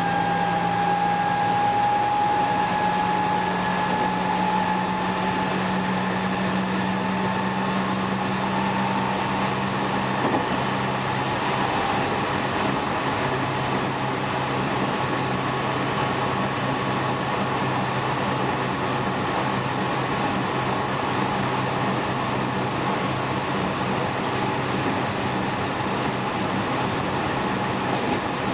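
Running sound inside a JR West 207 series 1000 subseries motor car with a Toshiba GTO-VVVF inverter: steady wheel-and-rail rumble with a low hum, and a whine that rises slowly in pitch over the first several seconds, then fades. A single click about ten seconds in.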